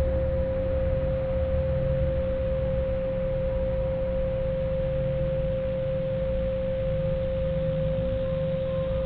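A steady pure tone held at one mid pitch without fading or wavering, over a low, wavering drone.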